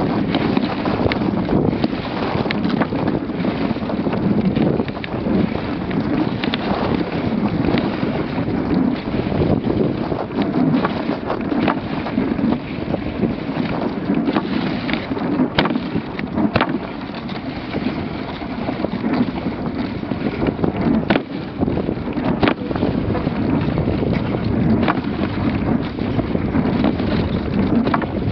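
Dogsled running over packed snow behind a husky team: a steady rumbling hiss of the runners, with wind on the microphone and scattered sharp clicks and knocks from the sled.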